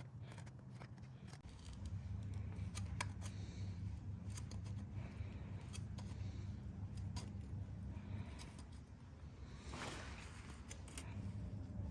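Newly made handsaw cutting through timber in repeated rasping strokes, over a steady low hum.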